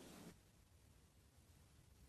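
Near silence: faint room tone, after a short soft noise that stops about a third of a second in.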